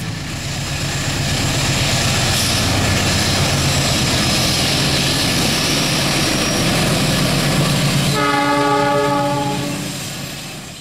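Diesel locomotive of a coal freight train passing, with a loud steady rumble of engine and running train, then a single horn blast of about a second and a half near the end.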